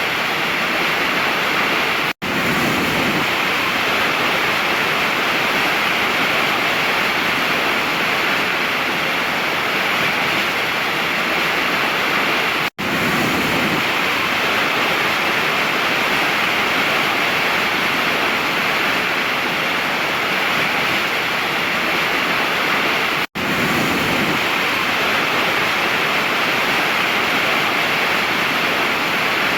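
Waterfall rushing in a steady, dense roar of falling water. It cuts out for an instant three times, about ten seconds apart.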